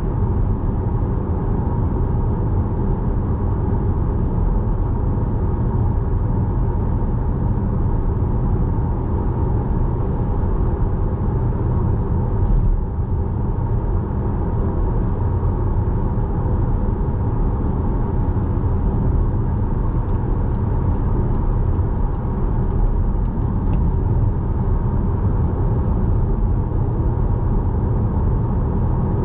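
Car driving at a steady speed: a steady low rumble of engine and tyre road noise. A little past the middle comes a short run of faint clicks, two or three a second.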